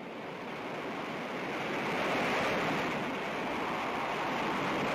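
Storm-driven sea: heavy waves rushing and breaking under high wind, a steady roar of noise that swells about two seconds in and again near the end.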